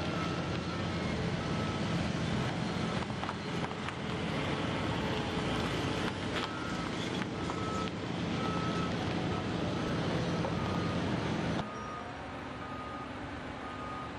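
Cars driving past close by, with engine and tyre noise, over which a reversing alarm beeps again and again. Near the end the noise drops abruptly to a quieter background, with the beeping still going on.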